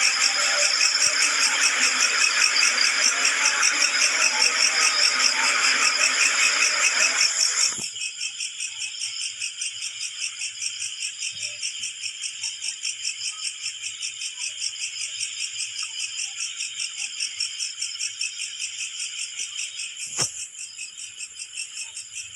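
Night insects, cricket-like, chirping in a steady, fast-pulsing high-pitched chorus. For the first several seconds a louder, fuller hiss sits under the chirping and cuts off suddenly about eight seconds in. A single sharp click comes near the end.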